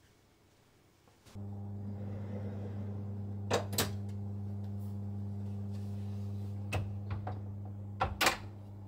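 An electric oven hums steadily with its fan running. Metal clinks come as the stainless tray holding the cake pan is slid onto the oven rack. Two knocks near the end are the oven door closing, and the hum then drops.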